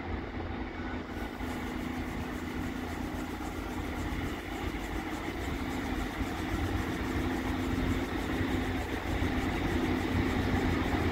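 A train's diesel engine running steadily with a low, even drone, slowly growing louder as it approaches.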